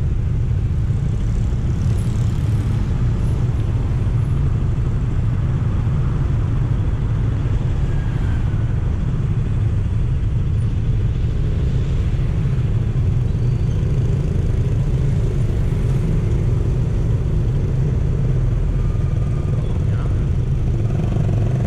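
Steady low rumble of a moving road vehicle, even and unbroken.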